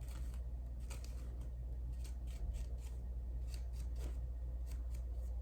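Scissors snipping, a dozen or so short, irregular cuts, over a steady low hum.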